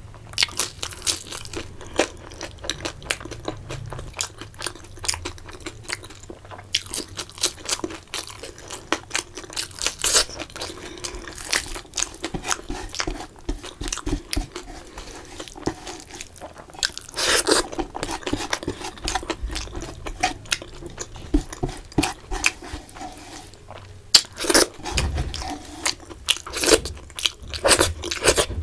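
Close-miked eating: a person chewing and biting crunchy fried food, with many small irregular crunches and mouth clicks. The crunching grows louder about two-thirds of the way through and again near the end.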